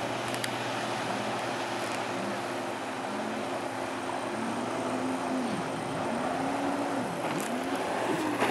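Yamaha stand-up jet ski engine running under a working throttle, its pitch rising and falling over and over, with a steady lower engine drone and the hiss of water spray beneath.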